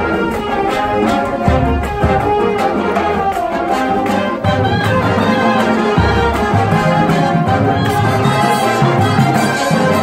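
High school marching band playing in full, brass and saxophones sounding sustained, changing chords.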